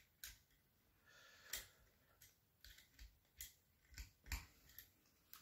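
Faint, scattered clicks and scrapes of a small Allen key working grub screws on an air rifle's metal action as they are snugged down.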